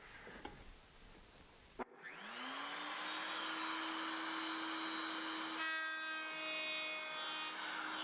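Router switched on with a click just under two seconds in, its motor whining up to full speed and then running steadily. From about five and a half to seven and a half seconds a second, harsher tone rides over the whine as the dovetail bit cuts through a piece of scrap wood.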